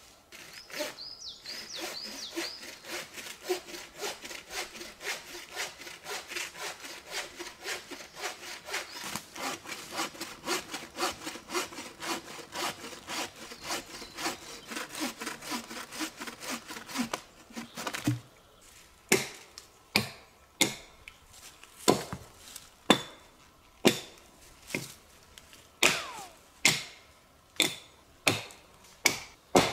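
Bow saw with a 60 cm blade cutting through a log in fast, steady back-and-forth strokes. About 17 seconds in the sawing stops, and an axe starts chopping into the log, sharp single blows about once a second.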